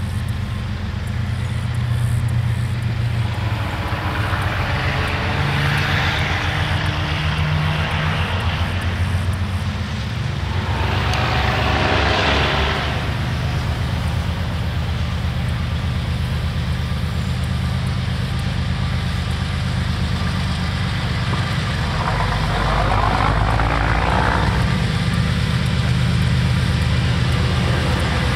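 A steady low engine drone, with a vehicle rushing past three times: a few seconds in, near the middle, and toward the end.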